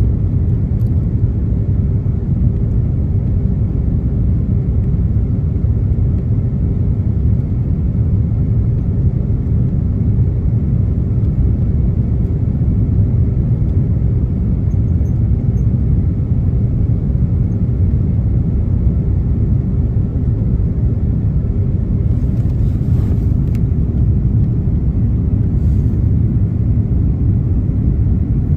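Steady cabin noise of an Airbus A330-300 airliner descending towards landing: a loud, even rumble of engines and airflow heard through the fuselage, with a steady hum running through it.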